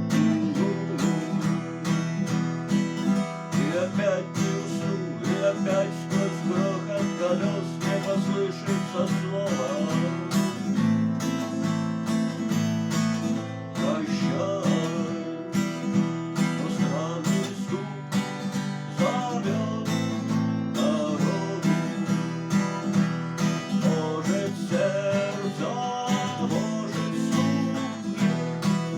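Music: acoustic guitar strumming steadily, with a wavering melody line played over it.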